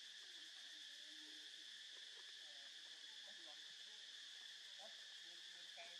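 Faint, steady shrill drone of an insect chorus, with faint scattered short chirps underneath.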